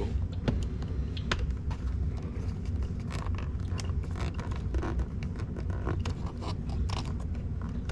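Plastic steering-column tilt and telescope switch being wiggled loose from its trim, with irregular scraping and clicking of plastic on plastic.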